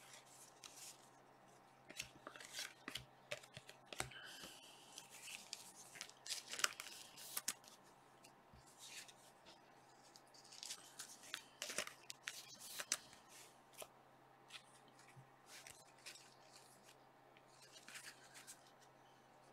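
Panini Chronicles soccer trading cards and their plastic sleeves being handled: faint, irregular rustles, slides and clicks as cards are shuffled through and slipped into sleeves, over a faint steady hum.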